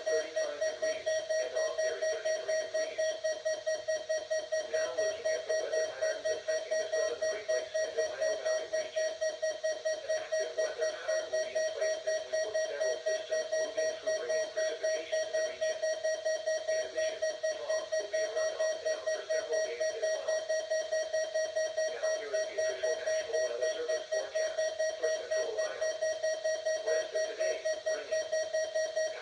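Midland WR-100 weather alert radio sounding its alarm: a continuous, rapidly pulsing beep on one steady pitch, the radio's alert for an incoming emergency alert broadcast.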